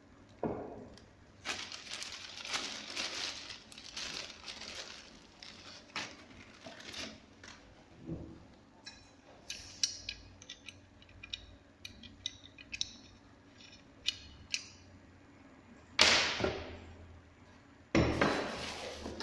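An angle grinder and its parts being handled, not running: a string of light clicks, clinks and rattles, with two louder knocks in the last few seconds.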